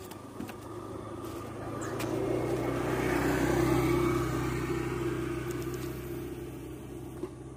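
A motor vehicle passing close by: engine and tyre noise swell to a peak about halfway through, then fade away.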